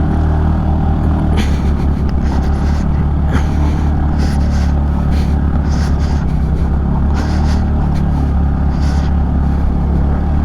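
Motorcycle engine running with a steady low note while riding over a broken, gravelly road, with repeated short bursts of noise over it.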